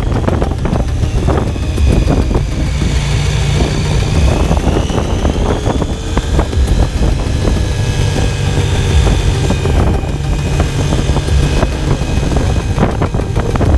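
KTM 890 Adventure motorcycle's parallel-twin engine running under way, its pitch rising and falling a few times with the throttle.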